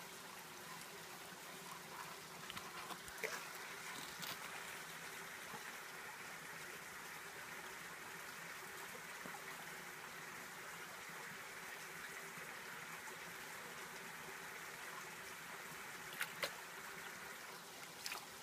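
Water swishing and trickling in a plastic gold pan as it is swirled and tipped to wash gravel out, over a steady background hiss, with a few light clicks of gravel.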